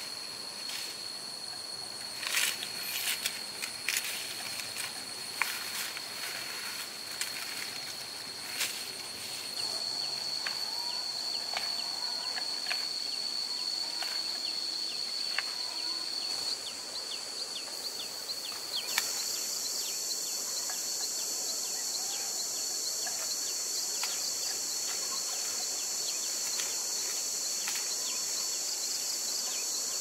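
A steady, high-pitched insect drone, joined a little past halfway by a second, higher insect hiss. Sharp crackles and snaps of dry corn leaves and stalks being pulled by hand come in the first part, with small ticks scattered through the middle.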